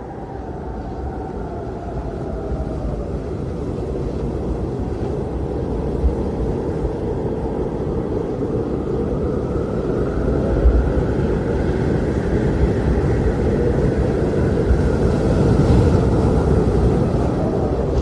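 Steady rumble with a faint whine that glides slowly down and then up in pitch, growing louder throughout.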